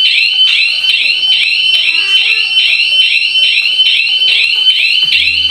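Electronic home-alarm siren going off after the alarm has been armed and then triggered: a loud, high-pitched warbling tone pulsing rapidly, about four to five times a second.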